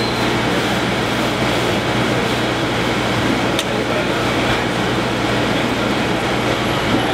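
A motor running steadily nearby, a continuous rumble with a low hum.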